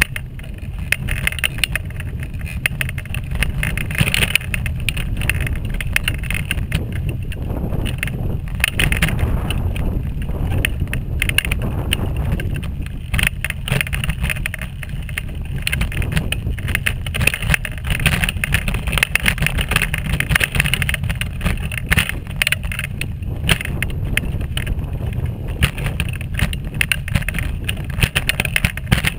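Wheelchair rolling along a path: a steady low rumble with constant fine crackling and rattling from the wheels over the surface.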